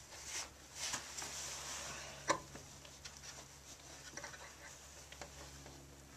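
Faint handling of a Nelson automatic horse waterer as its water-flow screw is adjusted: soft hissing of water running into the pan, small taps and ticks, and one sharp click about two seconds in.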